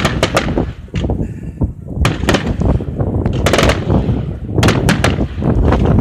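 Aerial firework shells bursting in quick succession: clusters of sharp bangs about once a second, with a low rumble between them.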